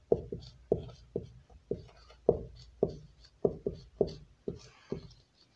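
Marker pen writing on a whiteboard: a quick series of short taps, about three a second, as each stroke strikes the board panel, with a faint scratch of the felt tip between them.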